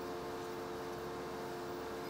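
Helicopter in flight heard from inside the cabin: a faint, steady drone with a few steady whining tones over it.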